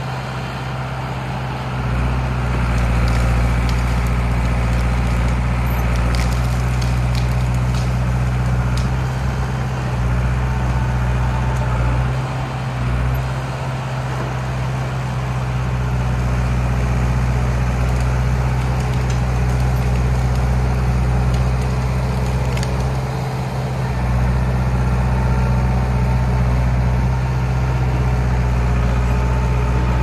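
John Deere 450B crawler bulldozer running steadily under load while pushing over trees, with a few brief dips in the engine sound and scattered sharp cracks and clanks.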